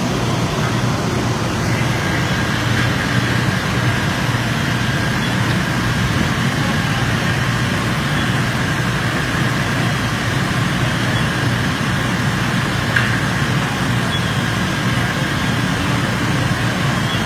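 Fire apparatus diesel engines running steadily at the fireground, a constant low drone with a faint high whine over it.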